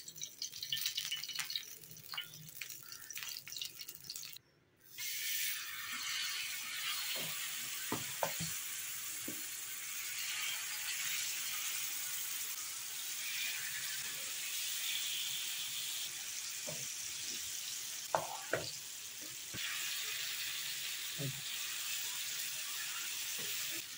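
Oil poured onto a hot cast-iron griddle, then after a brief drop-out, marinated pomfret pieces shallow-frying in it with a steady sizzle. A spatula taps and scrapes against the griddle a few times.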